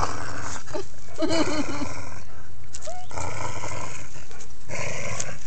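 Two dogs play-growling in several rough bursts while tugging on a toy between them.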